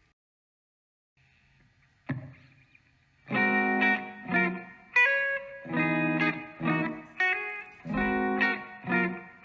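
Electric guitar played through a small combo amp. After a near-silent start and a single plucked note about two seconds in, chords are struck in a steady rhythm, each left to ring.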